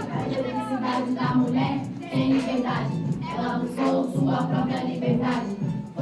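Music with a choir of young voices singing together.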